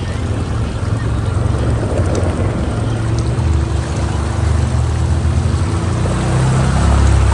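Side-by-side UTV engine running under way, a steady low rumble; a steady hum joins about three seconds in.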